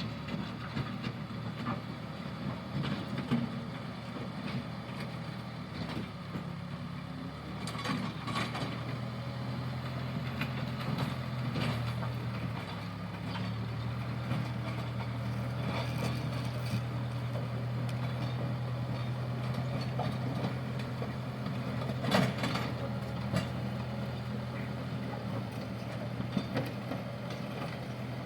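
JCB backhoe loader's diesel engine running steadily while it works, its pitch rising briefly a little past ten seconds in before settling. A few sharp knocks come through, the loudest about twenty-two seconds in.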